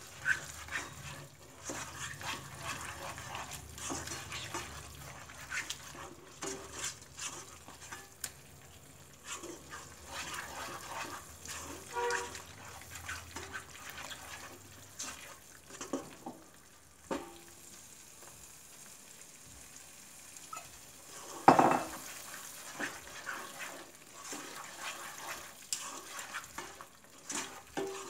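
A spatula scrapes and stirs a thick masala gravy around a nonstick kadhai in repeated strokes, with a soft sizzle from the simmering paste. A single loud knock comes about three-quarters of the way through.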